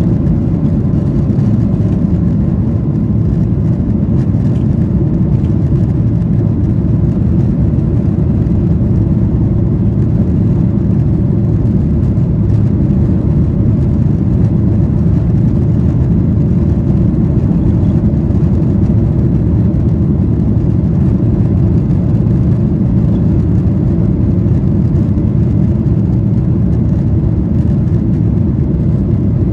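Boeing 737-800's CFM56-7B turbofan engines at takeoff thrust heard inside the cabin: a loud, steady noise that holds unchanged as the jet lifts off and climbs.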